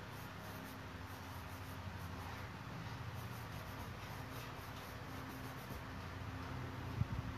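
Paintbrush stroking across a canvas: faint, scratchy strokes that come and go, over a steady low hum. A single thump about seven seconds in.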